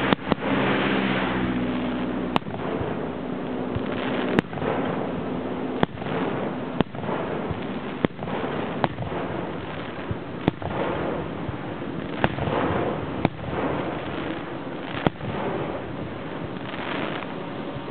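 Japanese senrin ("thousand-ring") firework shells bursting overhead: sharp bangs every one to two seconds, each followed by a dense crackle of many small sub-bursts popping.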